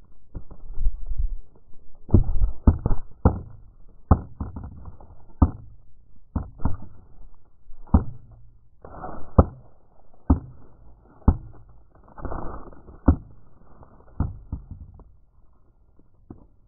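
Muffled, irregular knocks and scraping thumps, about fifteen of them, with a low rumble between, from the crashed DJI F550 hexacopter's onboard camera turning and rubbing against the ground. They die away a little before the end.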